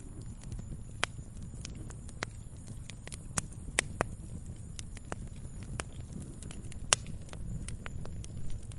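Wood log fire crackling: irregular sharp pops and snaps over a low steady rumble of the flames, with the loudest pops a little before four seconds in and about seven seconds in.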